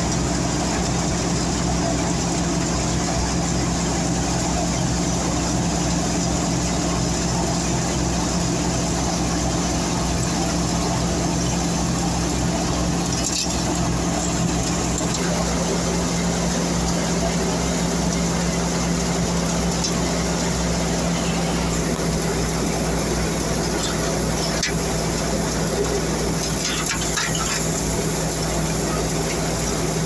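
Tractor-driven wheat thresher running steadily: a constant engine hum under the noise of the spiked threshing drum turning with straw inside, with a few brief clicks.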